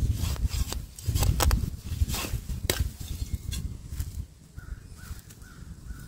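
A gloved hand pulling weeds out of straw-littered soil: dry stems and roots crackle and snap, with a rustle of earth, in a string of sharp crackles over the first three seconds before it goes quieter.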